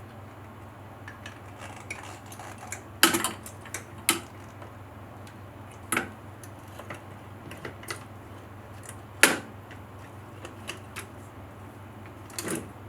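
Small metal tools and parts being handled during work on a motorcycle brake caliper: scattered clicks and about five sharper metallic clinks, the loudest about three and nine seconds in, over a steady low hum.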